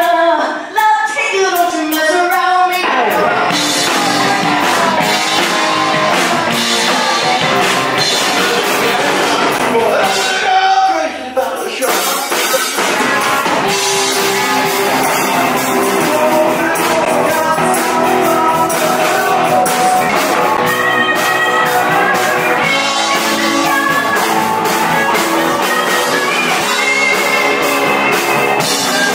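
Live rock band playing: a woman's lead vocal over electric guitars, bass and drum kit. A voice alone at first, the full band comes in about three seconds in, and the music drops out briefly about ten seconds in before picking up again.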